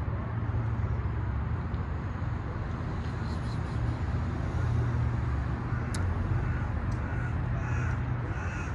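Steady low rumble of road traffic, with a few faint high chirps near the end.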